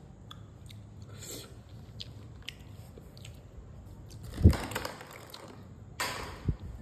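Someone eating rice and fish curry by hand. Soft wet clicks and squishes of fingers mixing rice into gravy on a plate, with chewing. Louder bursts come about four and a half seconds in and again about six seconds in.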